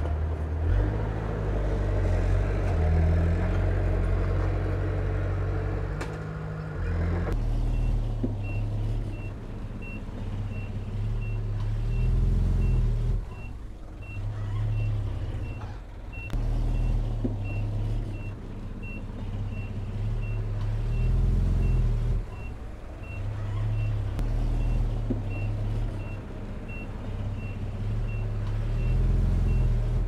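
Komatsu bulldozer's diesel engine running under load, its pitch stepping up and down. About seven seconds in, a reversing alarm starts and beeps evenly, about three beeps every two seconds, as the machine backs up.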